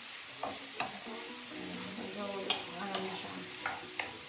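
Pork cubes with tomatoes and onions sizzling in a frying pan, with a wooden spatula stirring and scraping. It makes several sharp knocks against the pan over the steady sizzle.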